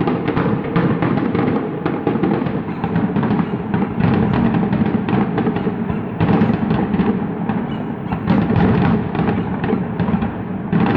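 Fireworks barrage: a dense, continuous run of overlapping booms and bangs with no pause.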